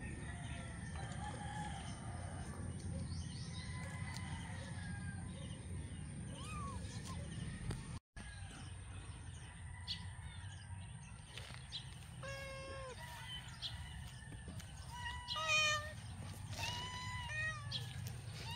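Hungry kittens about six weeks old mewing: a few short pitched cries in the second half, the loudest about fifteen seconds in, over a steady low rumble.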